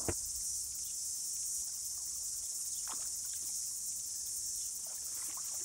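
A steady, high-pitched chorus of insects, with a few soft splashes from a dog wading and swimming in a shallow stream: one at the very start, one about three seconds in and a couple near the end.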